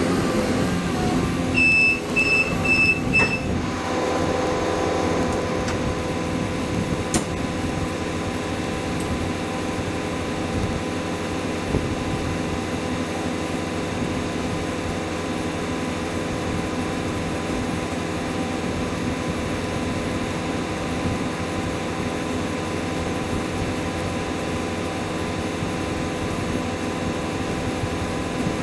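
Reverse-alarm beeps from a JCB compact track loader backing up, four quick beeps about two seconds in, over the steady drone of diesel farm machinery running. After the beeps the engine drone goes on unchanged.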